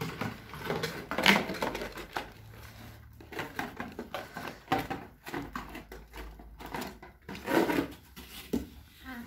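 A toy vacuum cleaner's plastic parts and its cardboard box and wrapping being handled: a string of irregular clicks, knocks and rustles.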